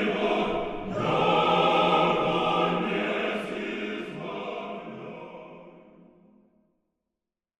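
Choral singing in a music piece, many voices together, fading out over the last few seconds and ending about six and a half seconds in.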